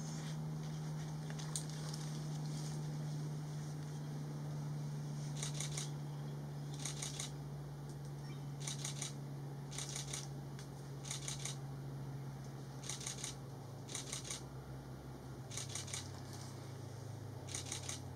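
Camera shutters firing in short rapid bursts, several clicks to a burst, repeating about every second or two and growing more frequent in the second half, over a steady low hum.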